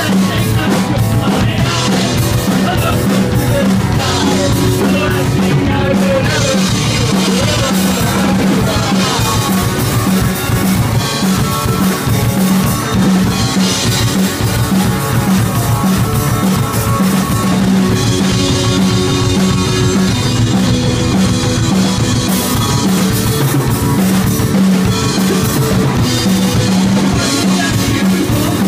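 Live rock band playing a song at full volume: guitar, bass and drum kit, with the drums prominent.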